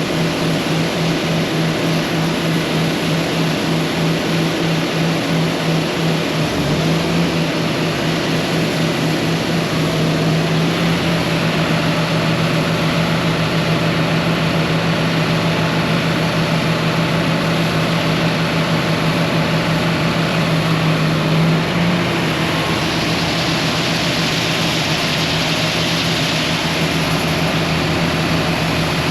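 Combine harvester's diesel engine running steadily at working speed, a deep, even drone over a wide hiss. The drone shifts slightly about seven seconds in and again past twenty seconds, and the hiss grows brighter for several seconds near the end.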